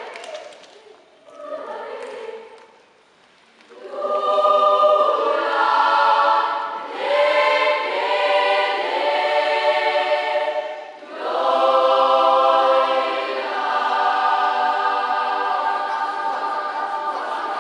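Children's choir singing in sustained full chords. It starts softly with a near-silent pause, comes in loudly about four seconds in, and breaks off briefly about eleven seconds in before going on.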